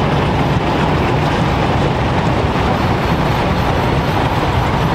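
A steam traction engine running past at close range, making a steady, dense mechanical clatter.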